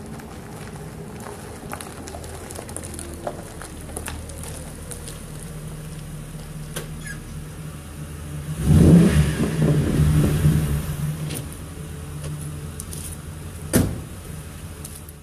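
2006 Ford Crown Victoria Police Interceptor's 4.6-litre V8 running through Hooker Super Comp Turbo mufflers. It rumbles low and steady as the car rolls in, gets much louder for a few seconds in the middle as it pulls up close, then settles back to idle. A car door shuts with a single sharp thump near the end.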